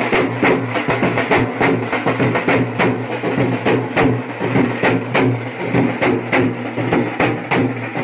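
A drum band's large barrel drums and stick-beaten drums played together in a fast, driving rhythm, many strokes a second.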